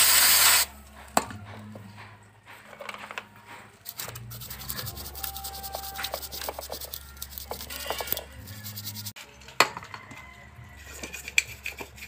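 Hands rubbing and scrubbing a rusty car thermostat clean, a run of scraping strokes through the middle with scattered clicks and knocks of the metal part. A short loud hiss opens it.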